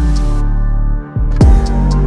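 Background music with deep, sustained bass notes and a kick drum about one and a half seconds in.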